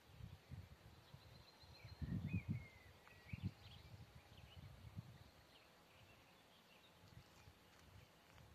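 Quiet outdoor ambience: faint bird chirps and warbles, with irregular low rumbles of wind buffeting the microphone, loudest about two seconds in.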